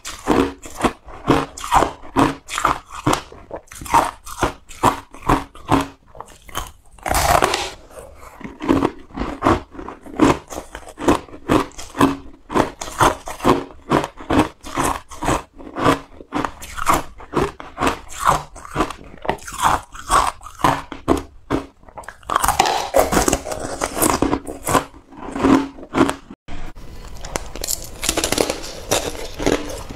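Close-up crunching and chewing of coloured ice, a rapid run of crisp crunches about three a second.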